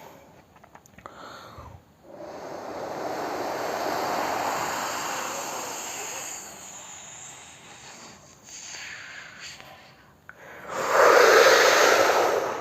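A person imitating a wind-and-rain storm with the mouth: a breathy hissing rush that swells and slowly dies away, then a louder gust of blowing about eleven seconds in.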